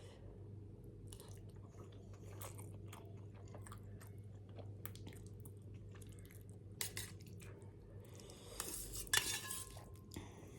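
Close-up mouth sounds of someone eating Maggi instant noodles: chewing with scattered wet smacks, and occasional clinks of cutlery against a dish. A louder run of these sounds comes about nine seconds in, over a steady low hum.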